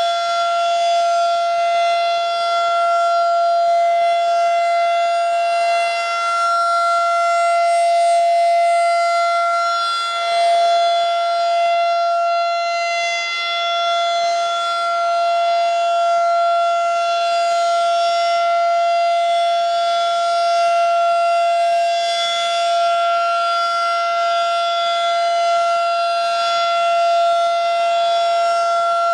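Federal Signal 2001-SRN electromechanical tornado siren sounding a steady wail during a test, holding one high pitch at full speed.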